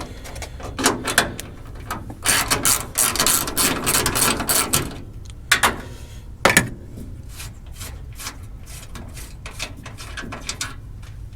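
Hand ratchet clicking in quick runs as bolts are backed out of a truck's radiator core support, with a few louder sharp metallic clinks in between.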